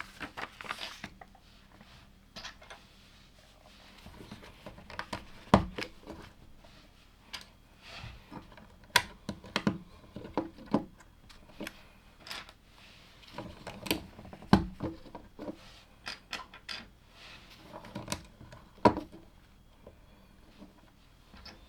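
LEGO plastic bricks clicking and tapping as pieces are handled and pressed together: a string of short, irregular clicks, with a few sharper snaps about every four to five seconds.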